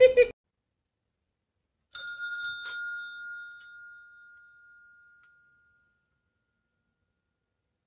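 A bell dings about two seconds in, with a quick second strike, and rings out in a clear high tone that fades over about four seconds.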